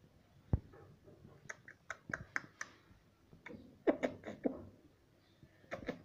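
Rose-ringed parakeet making a string of quick, faint clicks and a few short falling chirps, with one soft knock about half a second in.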